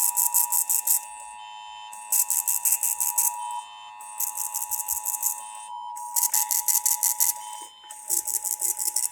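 Emergency Alert System alert tones on a TV broadcast: a steady two-tone attention signal with a high-pitched pulsed buzz over it, coming in five bursts of about a second each, roughly every two seconds.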